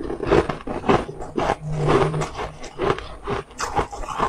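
Close-miked biting and chewing of a frozen ice block, an irregular run of crunches and scrapes several times a second.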